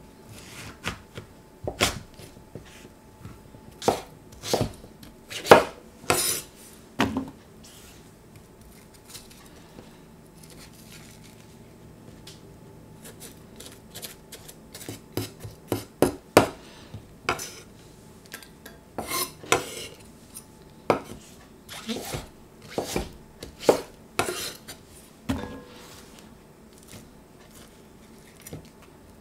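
Chef's knife cutting through raw pumpkin and knocking on a bamboo cutting board in irregular strikes, with a lull of a few seconds about a third of the way in. There are occasional clunks of pumpkin pieces landing in an enamelled pot.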